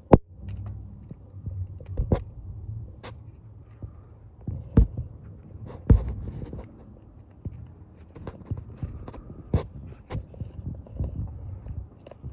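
Irregular metal clicks and knocks, with some scraping, as a socket extension and spark plug socket are worked down into a spark plug hole and against the engine; the sharpest knock comes right at the start, with others a couple of seconds apart. A low rumble of handling noise runs underneath.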